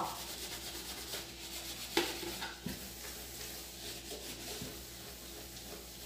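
Kitchen sponge scrubbing a pot lid, a soft rubbing, with a light knock about two seconds in.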